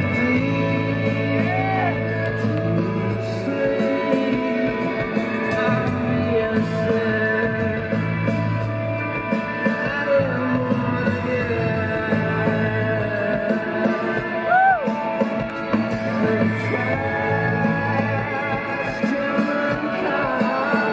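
Live rock band playing at full volume: electric guitars, bass and drums under a male lead vocal.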